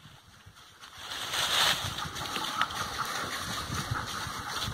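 Rustling and crunching of feet moving through dry leaf litter and brush. It starts about a second in after a brief quiet.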